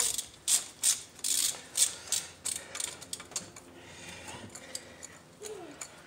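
3/8-drive ratchet on a long extension clicking in quick back-and-forth strokes, about three a second, as it unscrews a spark plug from the 2003 Nissan Sentra's engine. The strokes fade to faint ticks after about three and a half seconds.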